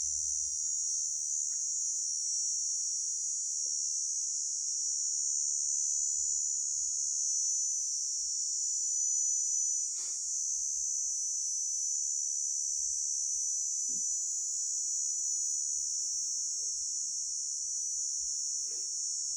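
Grasshopper stridulating: a continuous high-pitched buzzing trill, steady and without a break.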